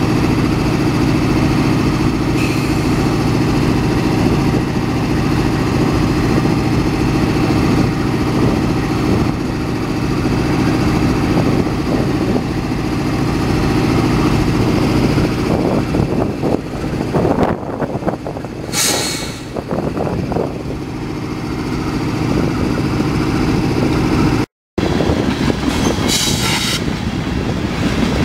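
Norfolk Southern AC44C6M locomotive's GE V16 diesel idling with a steady low drone, while a train of tank cars rolls past on the next track. Two short, high hissing bursts cut in about two-thirds of the way through and again near the end.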